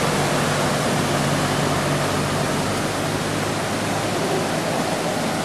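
Heavy rain pouring down, a steady even hiss with no let-up. In the first couple of seconds a pickup truck's engine hums low underneath as it drives through the floodwater, fading away.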